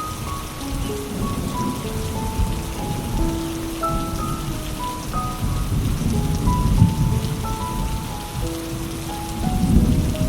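Steady rain with low rumbles of thunder swelling about two-thirds of the way in and again near the end, under a soft, slow melody of single held notes.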